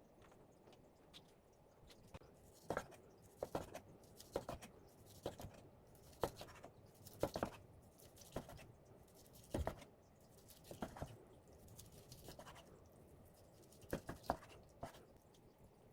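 Knife knocking on a cutting board at an irregular pace, about one cut a second, with light scraping between cuts as boiled beef shank is sliced.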